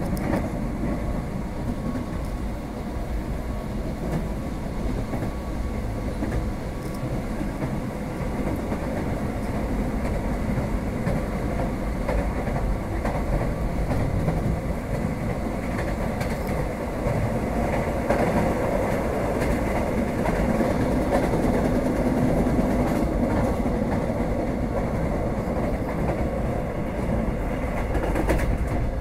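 Subway train running, heard from inside the car: a steady rumble of wheels on rails that grows louder after about ten seconds and again past the middle.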